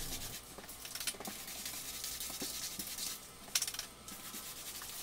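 Paint roller on a pole spreading wet floor sealer across an ash hardwood floor: a faint, steady rubbing swish, with a few small clicks about three and a half seconds in.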